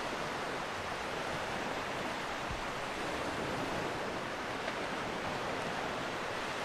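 Steady seaside ambience: an even hiss of wind and sea with no distinct events.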